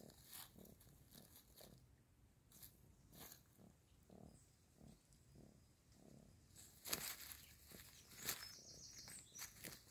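Faint, irregular crunching and clicking of a kitten biting and chewing a caught mouse, with a couple of sharper clicks near the end.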